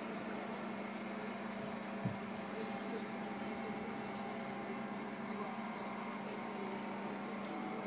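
Hydraulic power unit of a Haulotte HA15 articulated boom lift running with a steady hum while the boom is lowered, with one faint click about two seconds in; the hum cuts off at the very end.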